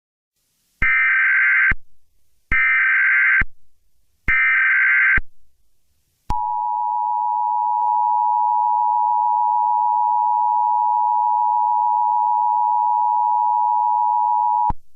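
Emergency Alert System header: three short bursts of digital data noise, about a second each and a second apart, then the steady two-tone EAS attention signal held for about eight seconds before it cuts off. It marks the start of a new alert, here a tornado watch.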